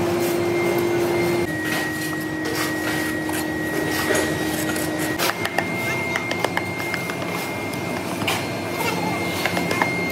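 Metalworking machine running with a steady hum and a high whine, its pitch shifting abruptly about a second and a half in and again about five seconds in, with scattered sharp metallic clicks and taps throughout.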